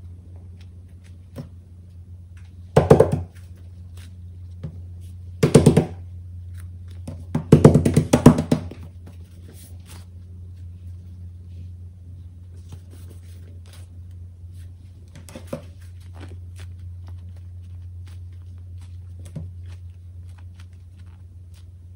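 Foam squishy toys being handled by hand: three loud crackling squeezes in the first half, then scattered light taps as toys are set down on the table, over a steady low hum.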